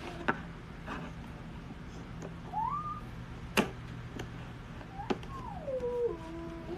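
Manual pull-cord garlic chopper being worked: sharp plastic clicks, with a short whine that rises in pitch and later a longer one that falls in steps as the cord is pulled and the blades spin down.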